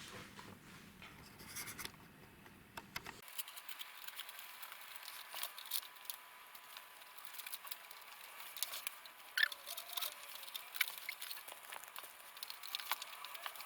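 Light, irregular clicks and taps of hands handling computer parts and cables. A low background hum cuts off about three seconds in.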